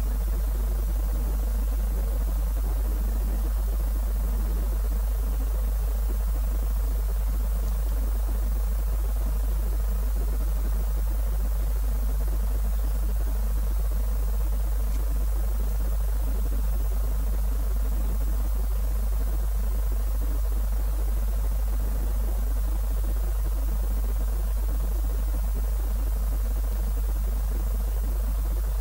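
A steady low hum with faint hiss behind it, unchanging throughout; no rocket engine sound.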